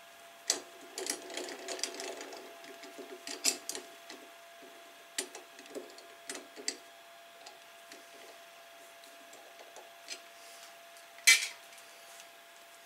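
Clicks and rattling from hand-setting aluminium rod in a 3D-printed collet in the lathe's 5C collet chuck. The rattling is densest in the first couple of seconds, scattered clicks follow, and one sharp click comes near the end; the lathe is not running.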